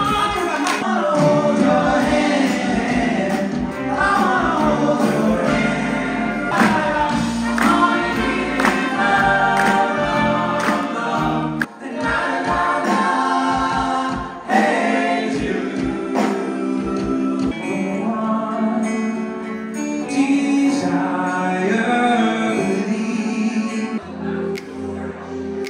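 A vocal group singing together in harmony over backing music, a live pop-style stage performance. Near the end the singing gives way to a quieter, steadier passage.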